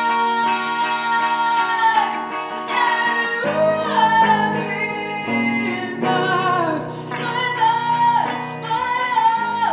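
A song: a woman singing with vibrato over instrumental backing. A long held note gives way, about three seconds in, to a sung phrase.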